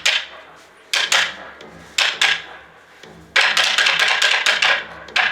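Sharp wooden clacks of kabuki tsuke beaten on a board to accent stage action: single and paired strikes about a second apart, then a rapid run of strikes for over a second starting a little past halfway.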